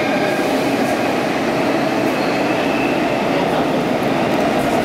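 Stockholm metro train running at speed through a tunnel, heard from inside the carriage: a steady, dense rumble and rattle of the wheels and car body, with faint steady tones running under it.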